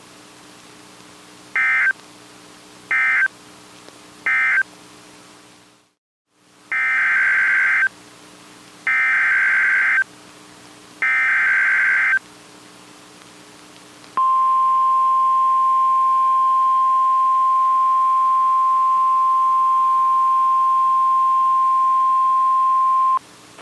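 NOAA Weather Radio SAME alert coding. Three short data bursts close out the previous warning as its end-of-message code. After a moment of dead air come the three longer data bursts of the next warning's header. Then the steady 1050 Hz weather-radio warning alarm tone sounds for about nine seconds and cuts off, over a faint hum.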